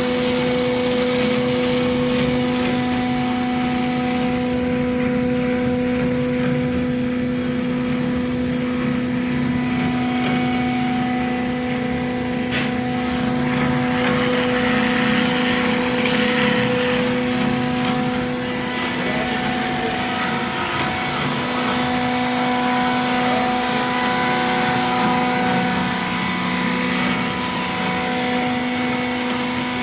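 Amada HA-500 automatic horizontal bandsaw running with a steady machine hum holding a constant tone, and a single sharp click about twelve seconds in.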